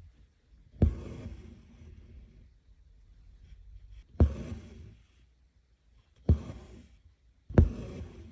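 Embroidery needle and three-strand embroidery thread working satin stitch through fabric held taut in an embroidery hoop. There are four stitches, each a sharp pop from the drum-tight fabric followed by a fading rasp as the thread is drawn through.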